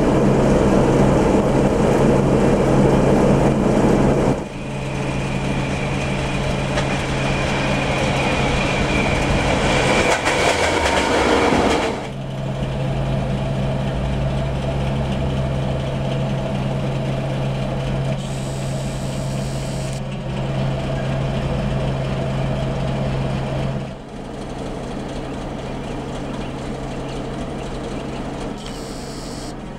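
Czech diesel locomotives of classes 749 and 754 running at a station platform, a steady low engine hum across several cut-together shots. The sound changes abruptly at each cut, about 4, 12, 20 and 24 seconds in.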